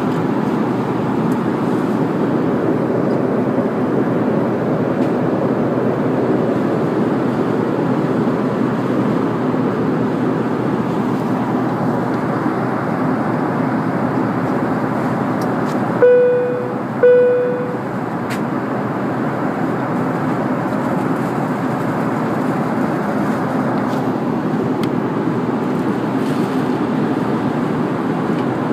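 Steady in-flight cabin noise of an Embraer ERJ-145XLR: its rear-mounted Rolls-Royce AE3007 turbofans and the rush of air along the fuselage. Just past the middle a cabin chime rings twice, two identical tones about a second apart, each fading quickly.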